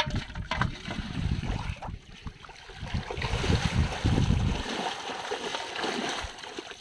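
Shallow muddy water splashing and sloshing as a person wades through it and pours and pushes an aluminium pot through the water, busiest in the second half.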